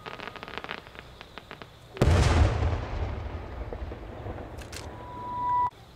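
Aerial firework shells: a rapid crackling, then one loud boom about two seconds in from a shell bursting overhead, dying away in a long rumbling echo. Near the end a steady whistle swells and stops suddenly.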